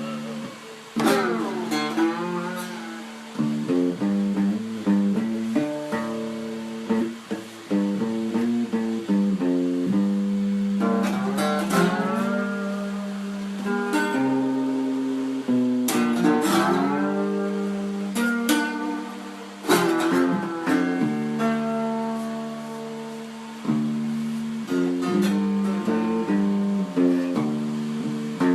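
Guitar picking a melody note by note in the low-middle register, with a few swooping slides between notes.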